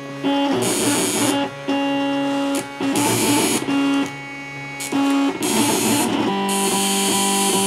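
MakerBot Cupcake CNC 3D printer's stepper motors whining at steady pitches as the print head makes a series of short moves, each lasting about half a second to a second, with rougher buzzing between them and the pitch changing from move to move.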